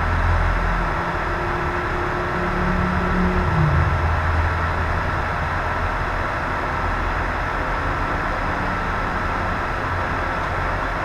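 Steady background hum and hiss, with a thin high whine running through it.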